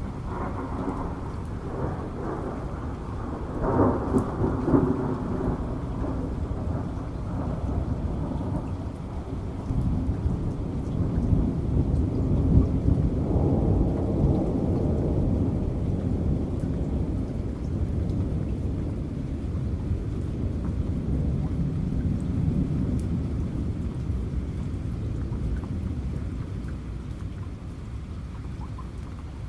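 Thunder over steady rain: a crackling clap about four seconds in, then a long low rumble that swells through the middle and dies away near the end.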